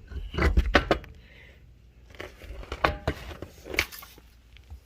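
A quick cluster of clattering knocks and thumps in the first second, then a few scattered clicks and taps, from handling a removed car wheel and tools.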